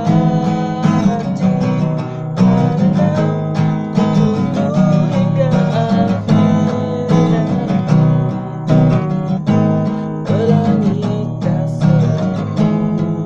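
Steel-string acoustic guitar strummed by hand in a steady rhythm, moving through a chord progression.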